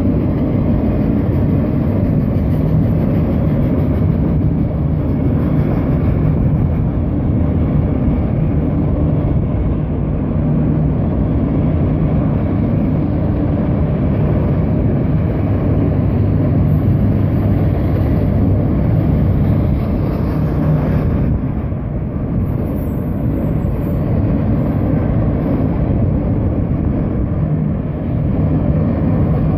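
Freight train of autorack cars rolling past through a grade crossing: a loud, steady rumble of steel wheels on the rails.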